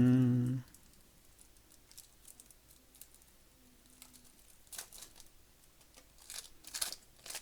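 Plastic packaging crinkling and rustling as board game components are handled, faint at first, with louder crinkles about five seconds in and near the end. A brief voiced sound comes right at the start.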